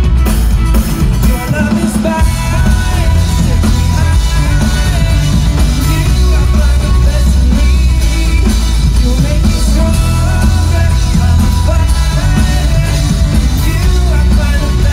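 A live band playing loud pop-rock through a stage sound system, with a singer over drums, electric bass, guitars and keyboard, heard from within the audience.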